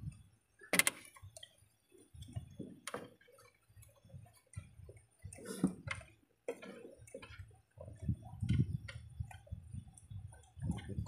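Hand tools clinking and knocking against the engine's valve cover, in scattered sharp metallic clicks with the rub and bump of handling between them; the sharpest click comes about a second in.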